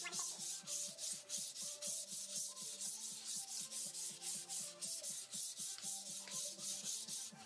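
Folded sheet of 150-grit sandpaper rubbed by hand along the grain of a raw wood board, in quick even back-and-forth strokes, about four a second. This is the medium-grit smoothing pass on bare wood before staining.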